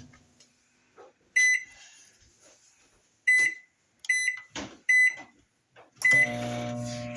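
Microwave oven keypad beeping five times as the cooking time is keyed in and started, with light button clicks between. Then the oven switches on with a steady hum about six seconds in.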